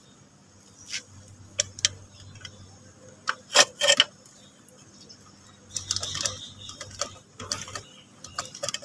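Hand ratchet and socket clicking, with sharp metal clinks of tools against a scooter's front shock absorber mount, in irregular bursts; the loudest are two strikes about three and a half seconds in.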